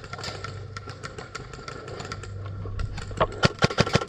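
A quick string of about seven sharp snaps in under a second near the end: airsoft guns firing, over a steady low hum.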